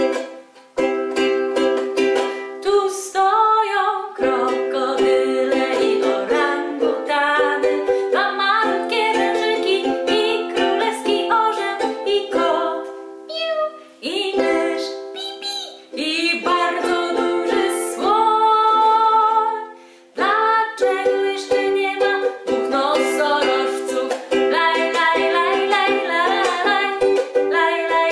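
Soprano ukulele strummed in chords, with a woman singing a children's song along with it. The playing breaks off briefly a few times between phrases.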